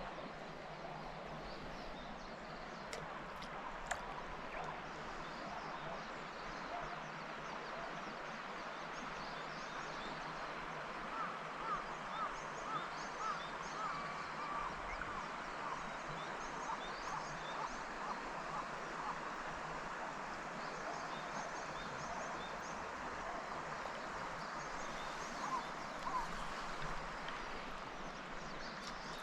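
River water running with a steady rush. A bird gives a run of short, quick chirps about a third of the way in, and a few more near the end.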